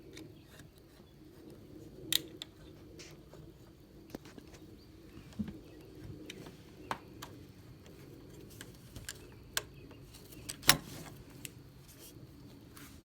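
A wood chisel cutting a recess into the edge of a wooden door for a deadbolt latch: scattered light taps and clicks at an irregular pace, with two sharper knocks, one about two seconds in and one near the end.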